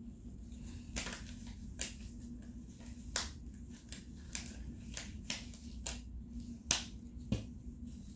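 Thin gloves being pulled onto the hands: a string of sharp, irregular snaps and crinkles, the loudest about two-thirds of the way in, over a faint steady hum.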